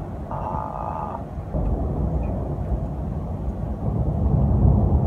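Low rumble of thunder, swelling about a second and a half in and again near the end, with a brief higher tone about half a second in.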